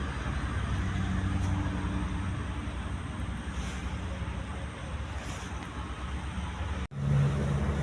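Steady noise of traffic on a nearby toll road, with a low engine drone running under it; the drone is stronger after a brief cut near the end.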